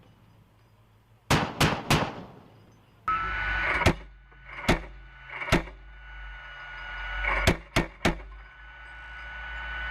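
M242 Bushmaster 25 mm chain gun firing a short three-round burst, the rounds about a third of a second apart. After a cut to a steady vehicle hum, it fires three single shots about a second apart, then another quick three-round burst near the end.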